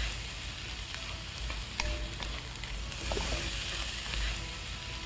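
Diced vegetables stir-frying in a wok: a steady sizzle as a wooden spatula turns them, with a few light clicks of the spatula on the pan.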